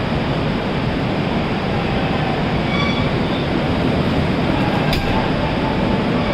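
Air-conditioned chair-car coaches of a departing express train rolling slowly past on the next track: a steady rumble and hiss of wheels and running gear. A brief faint squeal comes about three seconds in, and a single sharp click about five seconds in.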